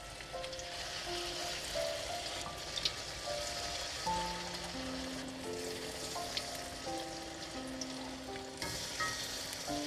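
Corn fritter batter deep-frying in hot oil in a wok: a steady bubbling sizzle. Soft background music, a simple melody of held notes, plays over it.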